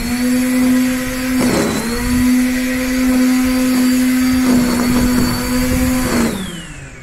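Black & Decker GrassHog 800 W corded electric string trimmer running with a steady high whine, its pitch sagging briefly about a second and a half in. Near the end it is switched off and winds down with a falling whine.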